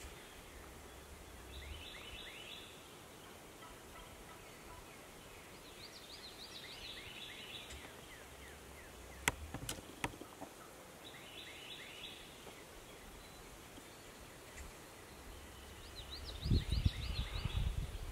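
A wild turkey gobbler gobbling about four times, a few seconds apart, each gobble a fast rattling run of notes. Two sharp clicks come around the middle, and low thumping noise comes near the end.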